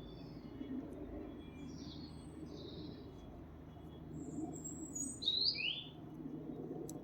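Birds chirping: short scattered high chirps and whistles, the loudest a pair of quick falling notes about five seconds in, over a faint steady low background rumble.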